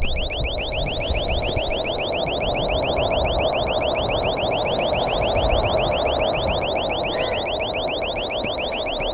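Electronic alarm sounding: a rapid, even run of short rising chirps, about five a second, over a steady hiss.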